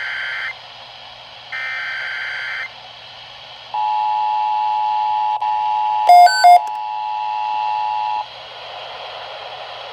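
Emergency Alert System header: two short bursts of the buzzing SAME data signal, then the steady two-tone EAS attention signal for about four and a half seconds. Two short, louder beeps sound over the tone about six seconds in, and a low hiss follows once the tone stops.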